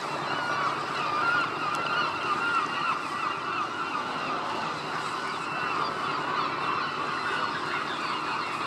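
Many gulls calling at once, a dense chatter of overlapping wavering cries.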